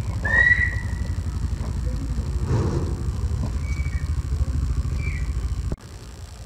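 A low, fluttering rumble with a few faint high chirps over it, cutting off suddenly near the end.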